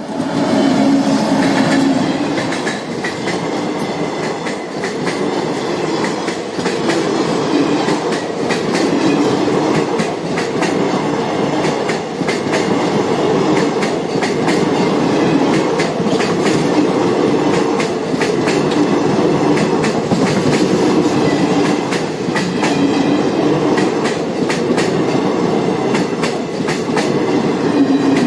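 Indian Railways express passenger train passing at speed close by: the locomotive goes by at the start, then the coaches, with a steady rhythmic clickety-clack of wheels over the rail joints throughout.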